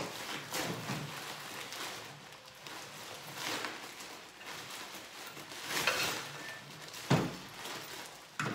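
Bubble wrap and plastic packaging rustling and crinkling in bursts as a part is unwrapped by hand, with a sharper knock about seven seconds in.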